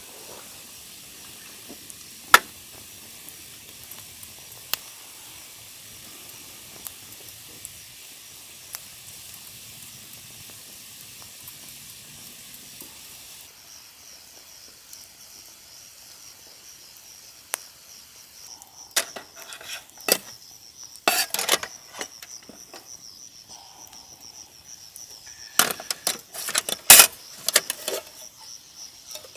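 A campfire burning with a steady hiss and scattered sharp pops. About halfway through, the sound cuts to insects trilling steadily, with a run of knocks and clatter from handled gear growing toward the end.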